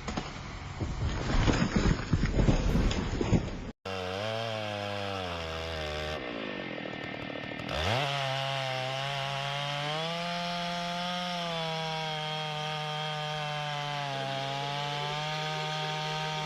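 Wood-cutting machinery: first a clatter of knocks and rattling wood, then, after an abrupt change, a small high-revving saw engine running. Its pitch wavers, dips and climbs sharply about eight seconds in, then holds steady at high revs.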